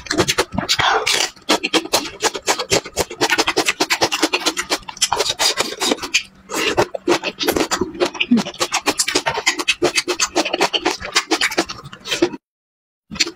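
Close-miked chewing of raw green chili pepper and spicy cabbage kimchi: a dense, uneven run of crisp crunches and wet mouth clicks. It cuts out abruptly for about a second near the end.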